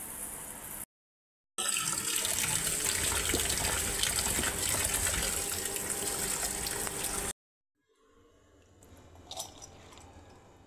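Tap water running into a plastic bowl of urad dal as the grains are rinsed by hand, an even splashing rush lasting about six seconds and cutting off abruptly. It is preceded by a brief pour of dry dal into a steel bowl and followed by quieter handling with a few small clicks.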